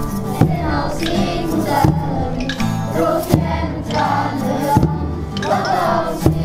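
Music with a group of voices singing over instrumental accompaniment, with a soft beat about every one and a half seconds.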